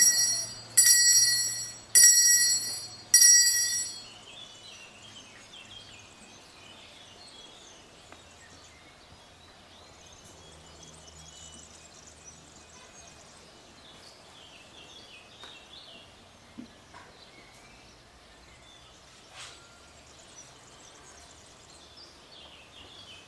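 Small altar bell rung at the elevation of the consecrated host, struck about once a second, four times, each stroke a bright, high ring that fades. After that come faint outdoor ambience and occasional bird chirps.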